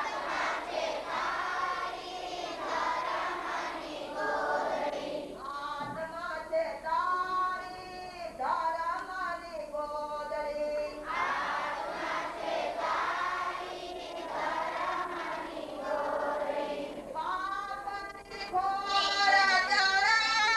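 A group of children and girls singing a devotional song together in long, held phrases.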